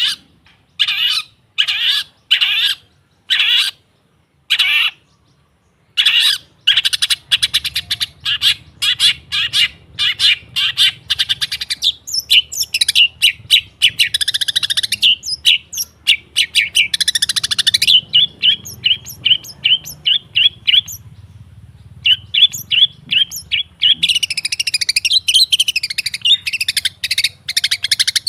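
Long-tailed shrike (cendet) singing. It starts with a run of harsh repeated calls, about one every half second, then after a short pause breaks into a fast, varied chattering song with trills. A faint low hum sits under the second part.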